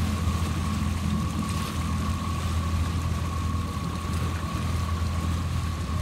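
Boat engine running steadily at low speed: an even low hum with a thin steady high tone above it, over wind and water noise.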